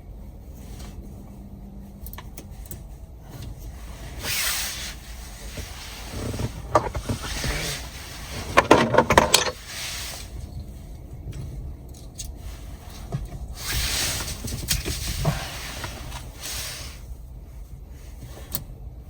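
Hands working parts loose on a car's steering column: scattered plastic and metal clicks and rustling, with a burst of rattling clicks about halfway through.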